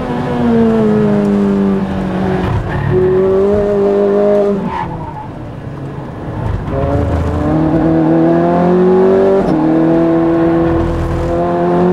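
Ferrari F430 race car's V8 engine heard from inside the cockpit, pulling hard on track with a few gear changes. About halfway through the engine goes quieter and its note drops, then it climbs steadily in pitch again under full power.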